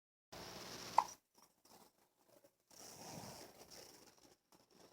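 A single short hiccup, a sharp pitched pop about a second in, over faint background noise.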